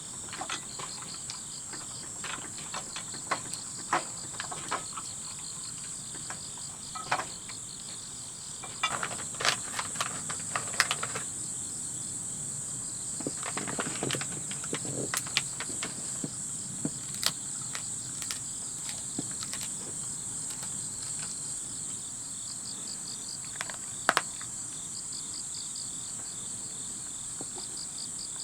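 Crickets chirping in a steady, high pulsing trill, with scattered sharp ticks and taps, a cluster of them about a third of the way in.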